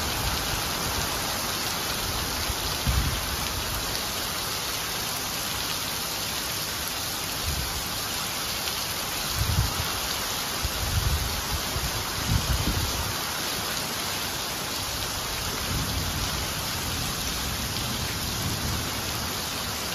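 Heavy downpour hissing steadily as it splashes onto flooded pavement, with a few short low rumbles scattered through it.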